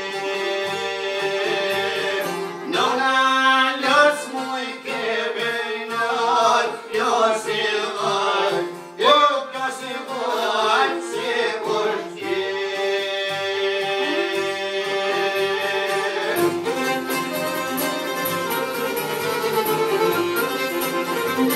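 Music: a voice singing over violin and other instruments, the singing heard mostly in the first half, then the instruments carrying on alone.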